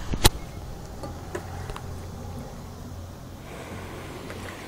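Handling noise from the phone recording: one sharp click shortly after the start, then low rubbing and rumbling against the microphone with a few faint taps.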